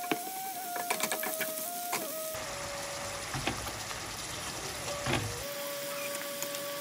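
Onions and garlic sizzling in oil in a nonstick frying pan, with a metal slotted spatula scraping and clicking against the pan several times as the onions are pressed and stirred. Soft background music with held notes runs underneath.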